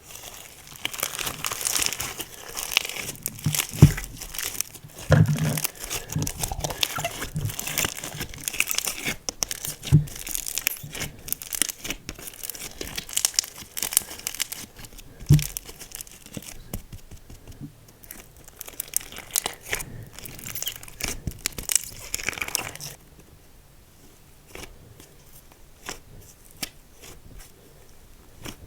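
Slime being squeezed and stretched by hand: a dense run of sticky crackling and tiny pops, with a few louder low pops. It turns much quieter about 23 seconds in.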